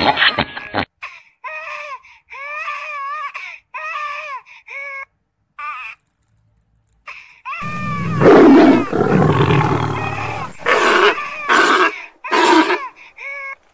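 Baby macaque screaming: a run of short, high, wavering cries, a pause, then louder, harsher screams, the longest about eight seconds in, followed by several short ones near the end. It is the distress call of an infant separated from its mother.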